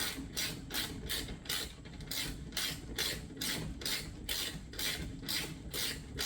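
Ratchet wrench clicking in quick, even back-and-forth strokes, about four a second, as the already-loose rear axle bolt of a Yamaha TT-R dirt bike is spun out.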